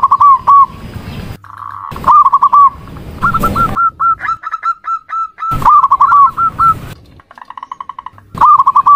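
Female zebra dove (perkutut) calling: repeated short cooing phrases, each a quick run of hooked notes, with a string of short clipped notes in the middle and a buzzy rattling passage near the end. Sharp clicks fall between some phrases.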